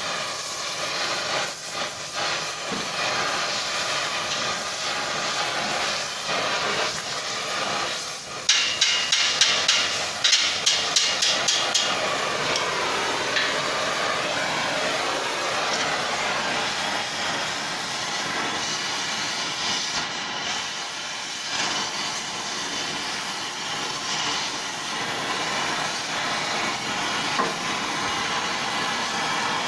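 Oxy-acetylene torch flame hissing steadily as it heats a wrapped steel collar. About a third of the way in, a quick run of about a dozen metal-on-metal taps, roughly four a second, as the hot wrap is worked.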